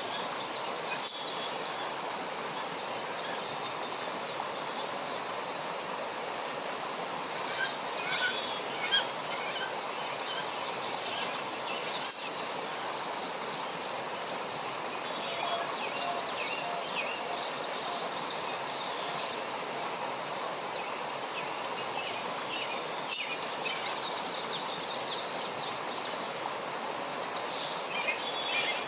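Birds chirping and calling at irregular intervals over a steady background hiss of outdoor ambience. A couple of brief louder sounds come about eight and nine seconds in.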